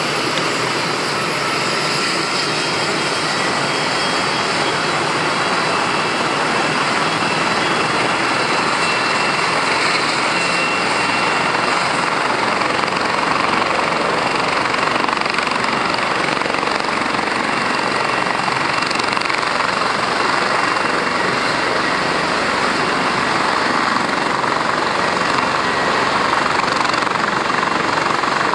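Steady drone of a light aircraft's engine and propeller, with a faint whine that drifts slightly in pitch.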